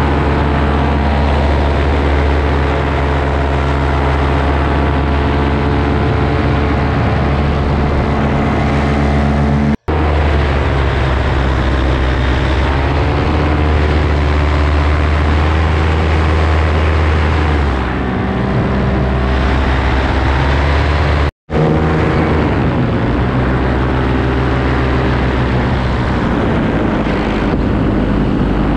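Paramotor engine and propeller running steadily at cruise, a loud drone whose pitch rises and falls a little in places. It breaks off for an instant twice.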